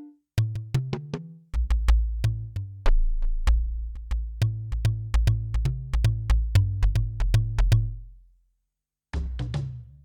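Kurzweil K2000 synthesizer playing a factory program dry, without effects: quick, short percussive hits over a deep, pitched bass line that comes in about a second and a half in. It stops about eight and a half seconds in, and a new phrase starts just before the end.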